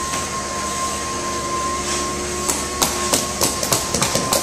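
Hammer taps on wood, sharp and irregular at about two or three a second, starting a little past halfway, over a steady machine hum with a high whine.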